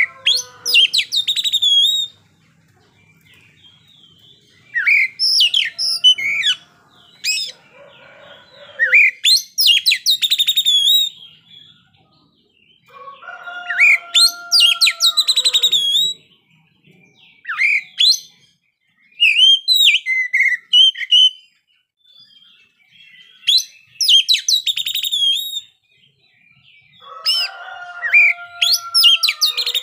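Oriental magpie-robin (kacer) singing in loud, varied phrases of rapid whistles, sweeping notes and trills, a few seconds apart. Three times a lower, drawn-out crowing call sounds between the phrases.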